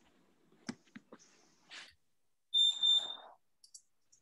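A high electronic beep, sounding twice in quick succession about two and a half seconds in, after a few faint clicks.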